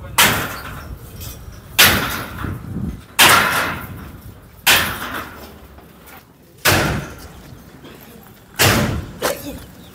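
Seven heavy pickaxe blows, one every one to two seconds with the last two close together, each a sharp strike with a short ringing tail, as the base of a steel-framed stall is broken out of the ground.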